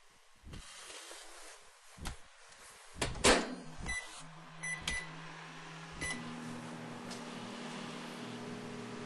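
Microwave oven: the door shuts with a clack, two short keypad beeps follow, and then the oven starts up and runs with a steady hum.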